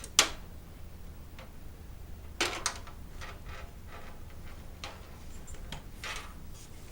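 Clicks and light knocks of a SATA cable being handled and plugged in inside a PC case. There is a sharp click just after the start, two more about two and a half seconds in, and a few softer clicks and a short scrape later.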